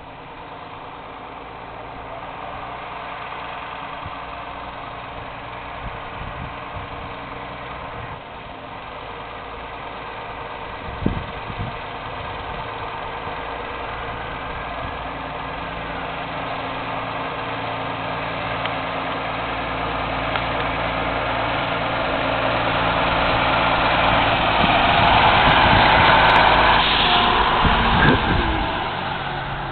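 Dennis fire engine's diesel engine running as the truck drives slowly toward and past, growing steadily louder and peaking as it passes close about 26 seconds in, then fading a little.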